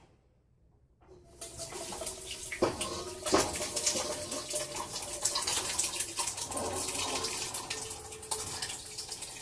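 Wet ground-turkey chili being dumped from a slow cooker crock into a larger pot: a steady wet sloshing and splattering with occasional knocks, starting about a second in.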